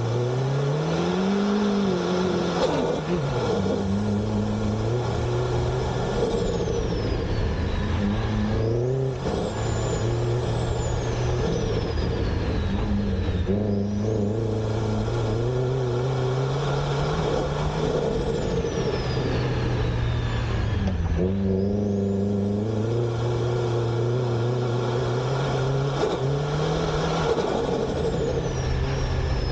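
Turbocharged Honda Civic EG engine at racing load, heard through an engine-bay microphone, its pitch climbing and dropping again and again as it revs through gears and lifts off. A high whistle falls away several times on the lifts, typical of the turbo spooling down and fluttering.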